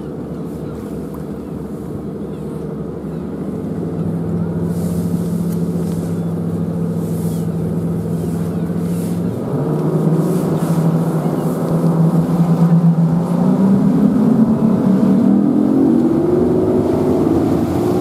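Rigid inflatable boat's engine running under way, its pitch stepping up about halfway through and then rising steadily as the boat speeds up, getting louder.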